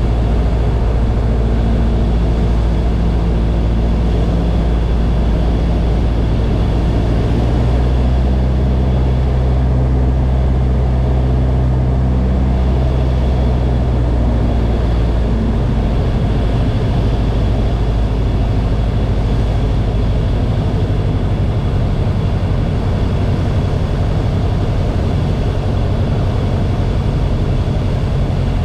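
Light single-engine airplane's piston engine and propeller droning loudly and steadily, heard inside the cockpit on a landing approach. The drone's pitch shifts about seven seconds in, and its deepest part eases about twenty seconds in.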